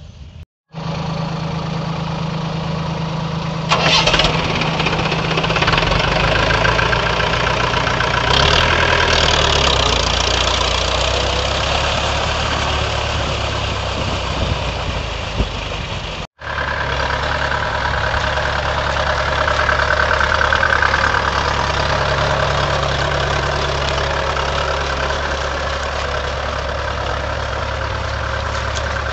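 Mahindra 475 DI tractor's diesel engine running steadily under load as it drives through a flooded paddy field on cage wheels, pulling a puddler through the mud. The sound drops out briefly near the middle, then the engine carries on the same.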